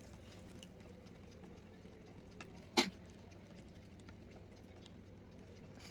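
Spoon stirring borax powder into warm water in a small plastic mixing bowl: faint scattered ticks, with one sharp click of the spoon against the bowl near the middle.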